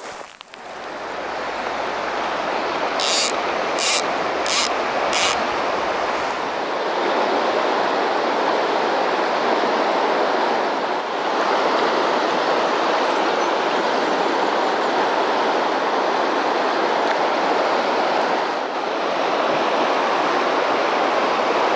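A wide river's current running steadily: an even, full rush of flowing water. About three seconds in, four short high rasps come in quick succession.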